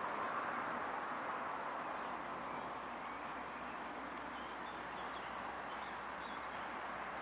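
Steady outdoor background hiss, with a few faint bird chirps in the second half.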